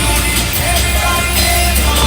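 Loud rock music with singing and a heavy, steady bass.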